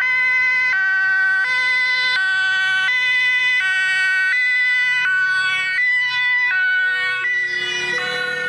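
German two-tone emergency siren (Martinshorn) on a Red Cross van running with blue lights, switching between a high and a low tone about every three-quarters of a second. Near the end a second two-tone siren at a different pitch overlaps it.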